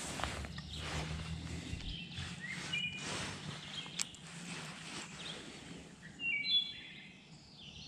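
Small birds chirping in short repeated calls, the loudest about six and a half seconds in, over outdoor background noise. Rustling and a sharp click from the angler handling the rod and line in the first few seconds.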